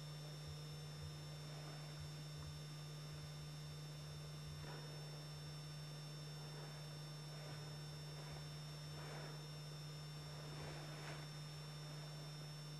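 Steady low electrical hum with thin high whines from the recording equipment. Over it come a few faint, short rustles as an alpine ibex tears grass while grazing.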